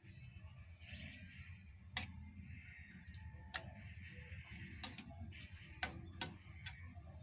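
Metal spatula stirring food in a frying pan: scraping on the pan with about six sharp metallic clicks as it strikes the pan's rim and base, the loudest about two seconds in.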